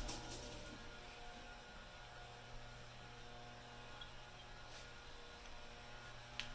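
Faint steady electrical hum, with a light click at the start and another near the end.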